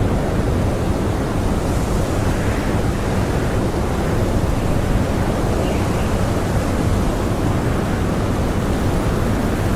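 Strong blizzard wind blowing steadily: a dense, even rush of noise, heaviest in the low end, with no lulls.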